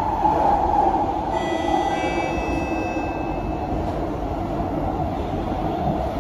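Interior of an SMRT C151A metro train running at speed in the tunnel: a steady rumble of wheels and running gear. A brief high-pitched squeal rides on top of it from about one to three seconds in.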